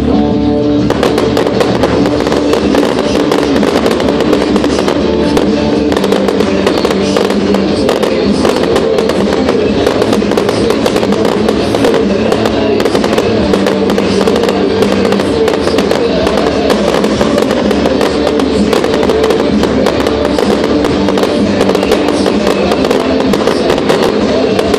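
Aerial fireworks going off in rapid succession, a dense run of bangs and crackles, over loud music.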